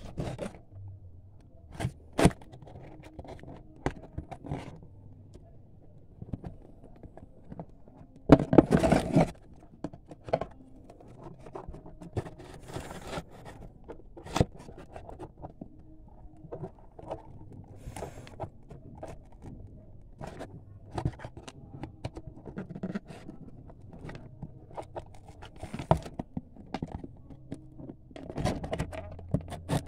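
Cardboard toy packaging being handled and cut open: scraping, scratching and small clicks and knocks throughout, with a louder scraping burst about eight seconds in and another near the end.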